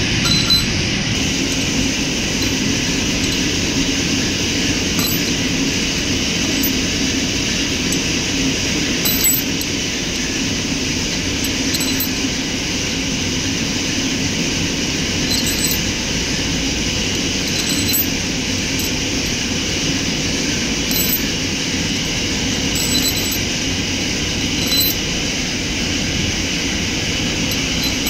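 Steady machine noise with a few faint light clinks scattered through it.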